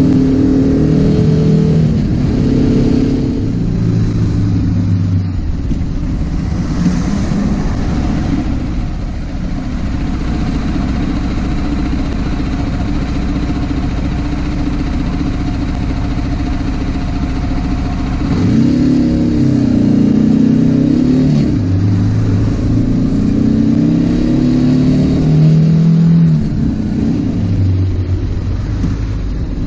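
BMW G310R's single-cylinder engine running on the move, its pitch rising and falling repeatedly as it revs up and eases off, with a steadier stretch in the middle.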